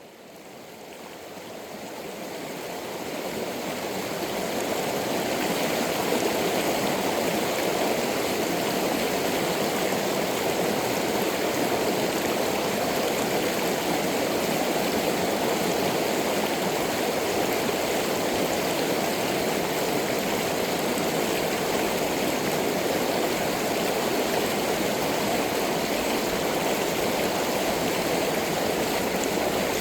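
Stream water rushing steadily, fading in over the first five seconds or so, then steady.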